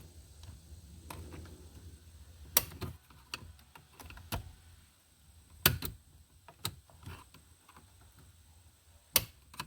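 A handful of sharp plastic clicks and taps from a car's dashboard trim panel being worked loose from its retaining tabs, scattered through the stretch, the loudest a little past halfway.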